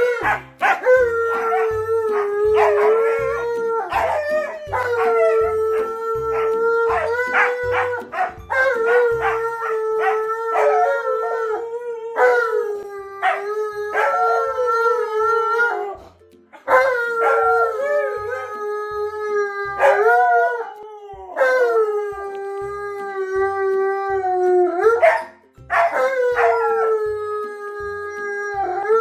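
An Alaskan Malamute and a Siberian husky howling together: long, drawn-out howls that overlap, several sliding down in pitch at their ends, broken by short pauses, with two brief near-silent breaks, one a little past halfway and one near the end.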